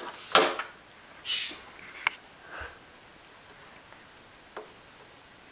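Fridge magnet being batted by a cat's paw against a refrigerator: a sharp click about half a second in, a brief scrape, then a few lighter clicks and taps spaced out over the next seconds.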